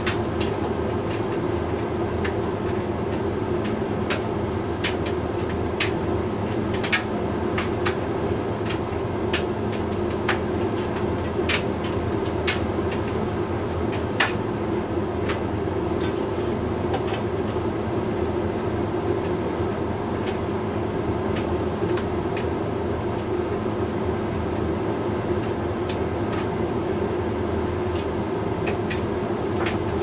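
Hoover Link X Care HLX C10DRGR condenser tumble dryer running mid-cycle on its Lingerie programme: a steady hum of the drum and fan, with irregular light clicks scattered through it.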